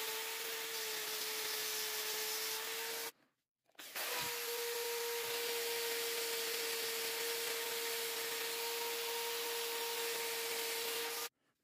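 Electric drill spinning a sanding wheel, with a steady motor whine and the hiss of the wheel rubbing the beechwood knife handle. It cuts out for about a second around three seconds in, resumes, and stops shortly before the end.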